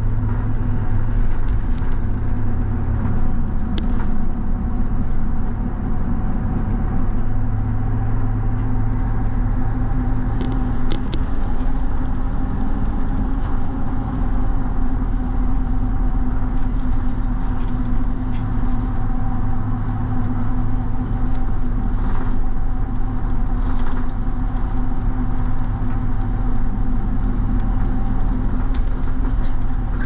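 Steady engine hum and road noise inside a moving bus, with a few faint clicks or rattles.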